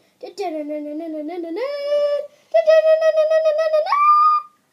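Children's voices singing a few long held notes that step up in pitch, the last one much higher, like a sung fanfare.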